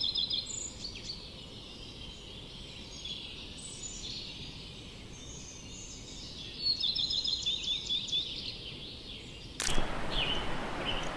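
Small birds singing in quick trilled phrases over a low background rumble. Near the end the ambience cuts suddenly, with a click, to a steady hiss-like noise.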